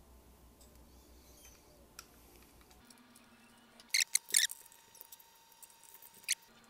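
3D-printed plastic parts clicking and knocking together as they are handled and fitted. A quick cluster of sharp clicks comes about four seconds in, then lighter ticks and one more sharp click near the end.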